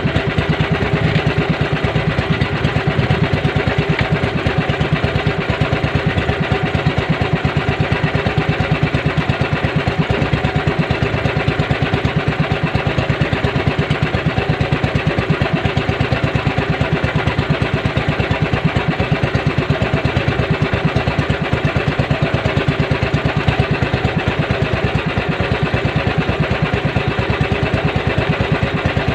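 The engine of a small outrigger fishing boat (bangka) running steadily with a fast, even beat.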